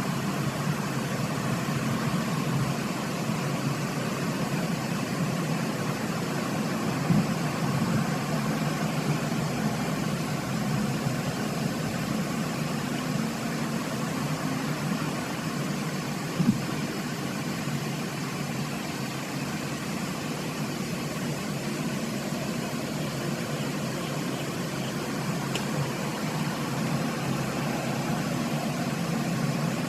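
Steady low mechanical hum, even throughout, with two brief clicks, one about seven seconds in and one about sixteen seconds in.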